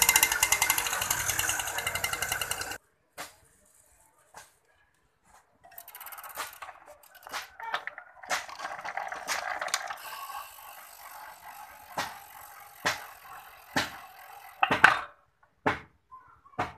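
Luna TFR+ moped's 49cc two-stroke engine running with a fast, even beat, then cutting off suddenly about three seconds in. Scattered sharp clicks and knocks follow.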